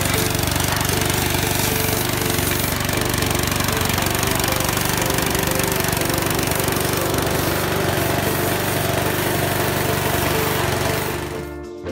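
Pressure washer running steadily: a motor's drone under the hiss of the high-pressure spray hitting a sheet-metal slasher deck. It fades out near the end.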